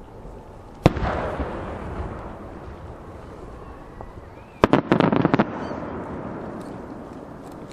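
Large No. 10 (shakudama) aerial firework shell bursting: one sharp loud bang about a second in, followed by a rolling rumble that fades. Around the middle comes a quick burst of about seven sharp cracks in rapid succession.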